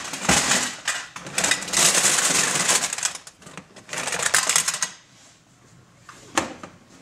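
A heap of plastic tape cases clattering and rattling against each other and a plastic box as they are tipped out onto a table, for about five seconds, then a single click near the end.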